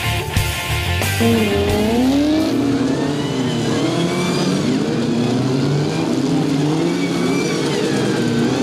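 Demolition derby cars' engines revving, several at once, their pitch rising and falling over and over. Rock music plays briefly at the start and cuts off about a second in.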